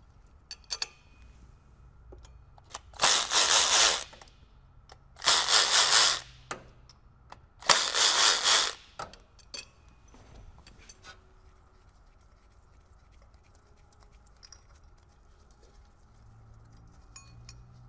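Handheld cordless power tool running in three short bursts of about a second each, backing out the water pump pulley bolts while the pulley is held with a pulley wrench. A few light metal clicks follow as the loosened bolts and tools are handled.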